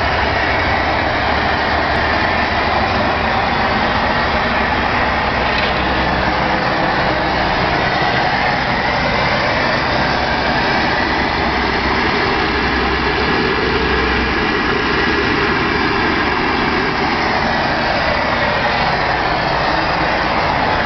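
Airliner lavatory toilet flushing at cruise altitude: blue flushing fluid swirls down the stainless steel bowl under the steady loud roar of the aircraft.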